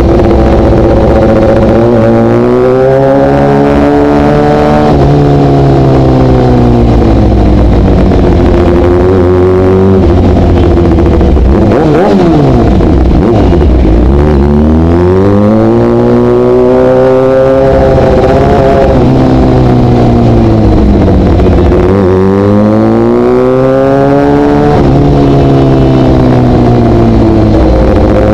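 Sportbike engine heard from on board, loud and close, its revs rising and falling several times as it picks its way through traffic. Around the middle the revs sink nearly to idle, then climb again.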